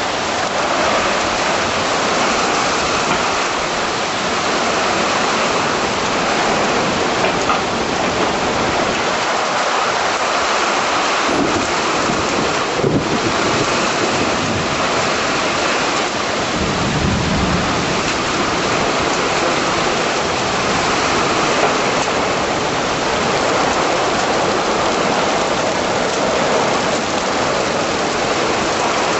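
Heavy rain pouring steadily in a severe thunderstorm, with a low rumble of thunder a little past the middle.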